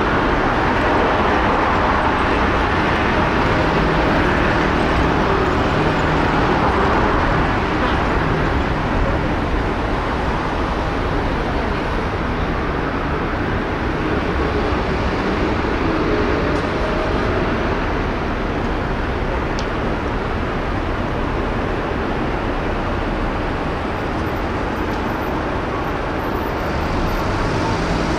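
Steady city street noise: road traffic running past, a continuous mix of car and engine sound.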